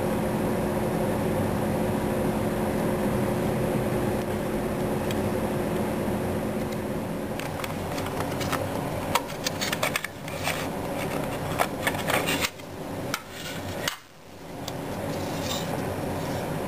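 A steady background hum with a few held tones, then from about halfway in a run of sharp clicks and taps: hard plastic model-kit parts handled and pressed together on a wooden table.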